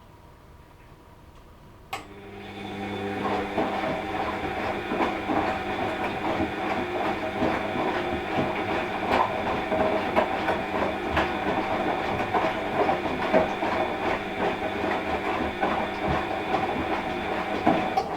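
Washing machine starting a drum turn: a sharp click about two seconds in, then the motor winds up with a steady whine while the drum and load rattle and clatter for about sixteen seconds. It cuts off suddenly near the end, leaving a low hum.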